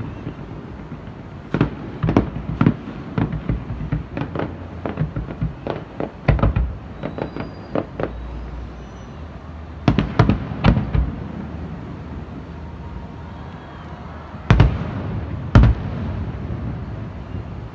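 Aerial firework shells bursting in an irregular series of booms and cracks, coming in clusters, with the two loudest bangs about a second apart near the end.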